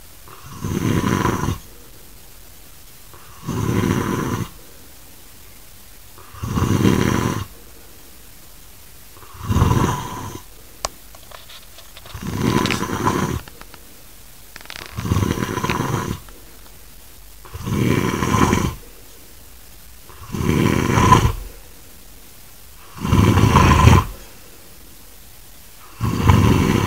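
A man snoring heavily, a grunting, sawing snore on each breath: about ten long snores, each lasting about a second, coming every two and a half seconds or so.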